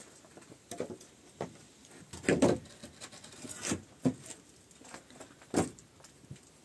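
Irregular wooden knocks and thuds, about six over a few seconds, the loudest a cluster about two and a half seconds in and a single sharp one near the end: wooden roof planks being handled and stepped on over a cinder-block hut.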